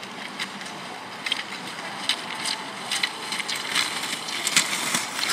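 Cross-country skis sliding over packed snow and ski poles planting: a steady hiss broken by short, irregular crunching clicks.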